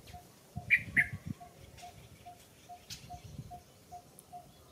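Newborn baby macaque giving two short high squeaks in quick succession about a second in, over soft low rustles of movement. In the background a bird repeats a single note about twice a second.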